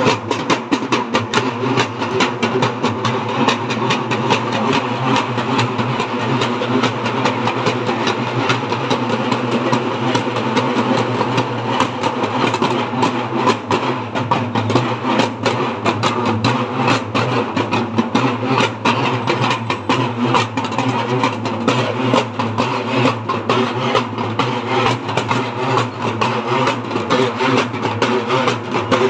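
Several barrel drums beaten with sticks together in a fast, continuous roll of dense strokes.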